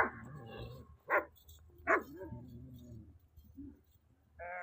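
A dog barking: three short, sharp barks in the first two seconds, then a brief higher call near the end.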